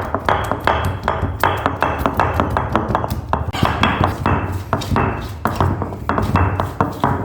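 Repeated pounding strikes, about three a second: a stone pestle crushing dried lesser galangal root into small pieces.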